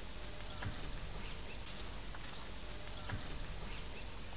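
Outdoor ambience: small birds chirping over a steady low rumble, with two faint knocks.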